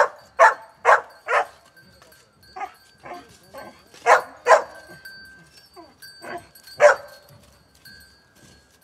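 A dog barking in short, separate barks: four quick barks at the start, two more about four seconds in, and a single bark near seven seconds.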